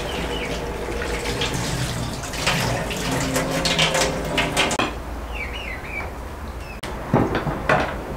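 Tap water running into a stainless steel sink and splashing as something is rinsed under it, stopping about five seconds in. Birds chirp after it, and near the end come two sharp knocks.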